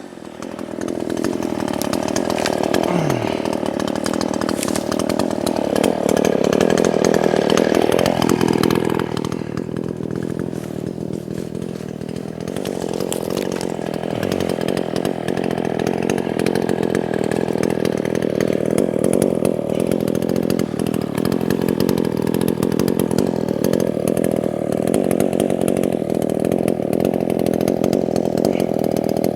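Small Craftsman two-stroke gas chainsaw running at high revs without a break, a little louder for a couple of seconds about six seconds in before easing off.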